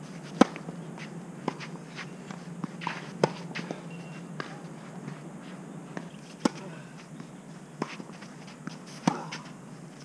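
Tennis ball struck by rackets on a clay court: a sharp pop from a serve about half a second in, then a string of separate hits through the rallies, some loud and some fainter. Footsteps scuff on the clay between the shots.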